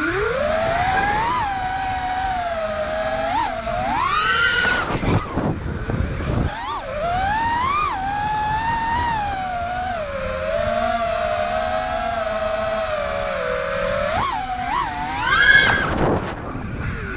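Four-inch FPV freestyle quadcopter's motors and propellers whining. The pitch rises and falls with the throttle, with sharp climbs at punch-outs about four seconds in and again near the end, where it is loudest.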